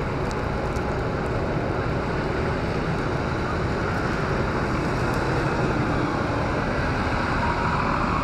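Steady traffic noise of a busy city street, vehicles running by on a wet, snow-covered road, with no single vehicle or event standing out.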